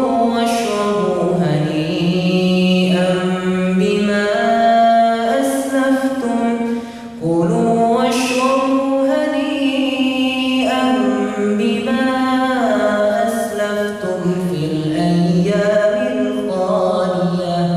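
A young man's voice reciting the Quran in Arabic in melodic chant, with long held notes that glide up and down in pitch. There is a brief pause for breath about seven seconds in.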